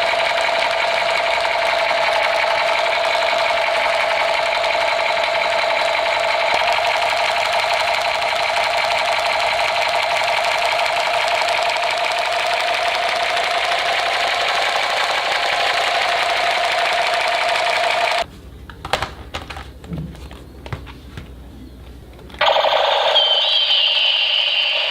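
Battery-powered toy machine gun's electronic firing sound effect: a loud, fast, steady rattle. It stops about 18 seconds in, leaving a few quiet clicks, and starts again about four seconds later with a wavering higher tone over the rattle.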